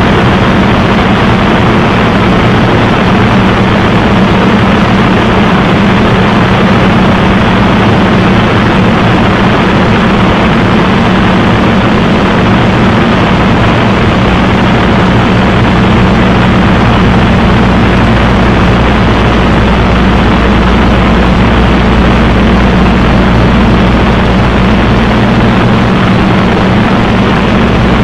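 Two-seat Spitfire's Rolls-Royce Merlin V12 engine and propeller running steadily in cruising flight, a loud constant drone with rushing air, heard from inside the cockpit. The deep low note strengthens about halfway through.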